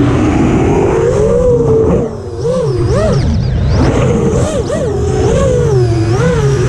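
Brushless motors of a 5-inch FPV quadcopter (iFlight XING 2806.5 1300kv) whining in flight. The pitch swings up and down with quick throttle changes: a short dip in loudness about two seconds in, then several fast rises and falls. The quad is flying with D-min turned off, a setting the pilot removed because it caused a raspy noise in the motors.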